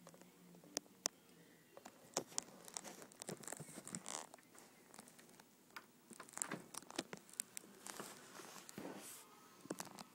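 Irregular rustling and small sharp clicks, like something being handled close by.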